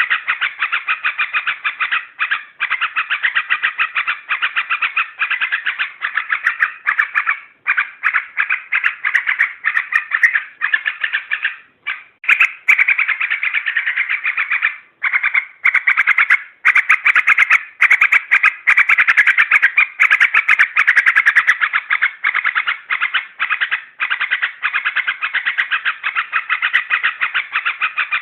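Yellow-vented bulbul (trucuk) singing a continuous run of rapid chattering phrases with only brief pauses, the agitated song used as a lure to provoke other bulbuls.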